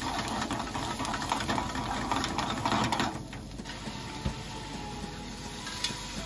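Mushroom sauce of olive oil and liquid boiling hard in a frying pan, crackling and spitting, then settling to a quieter simmer about three seconds in.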